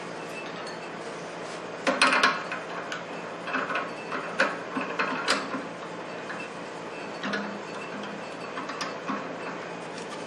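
Sharp clicks and knocks of a wooden bowl being handled in Cole jaws on a woodturning lathe's chuck as it is taken off, over a steady background hum.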